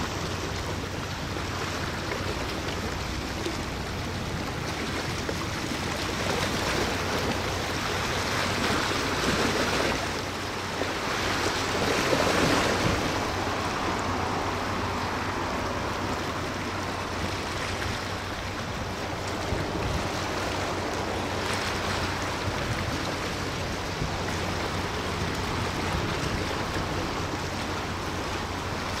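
Steady rush of wind and water with a low, even hum underneath, swelling louder twice near the middle.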